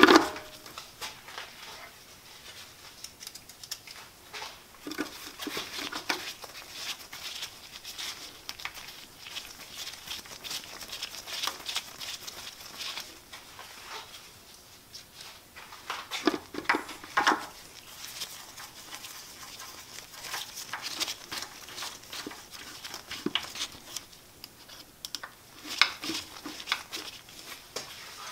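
Light handling noises of the lathe's RPM gauge face panel and small parts being fitted: scattered small clicks, taps and rustling, with a few louder clicks a little past halfway and again near the end.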